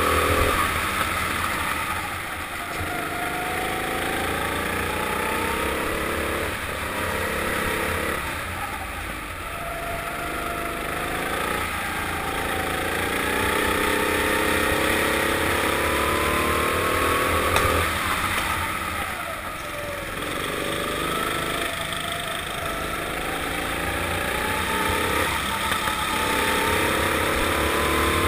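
Four-stroke kart engine heard from onboard, its pitch climbing for several seconds as it accelerates along the straights, then dropping sharply when the throttle lifts for the corners, several times over.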